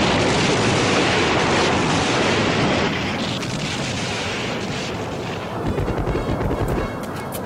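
Dense, continuous roar of a salvo of rocket launches and blasts. It cuts off abruptly about three seconds in, and a quieter, steady rushing noise follows.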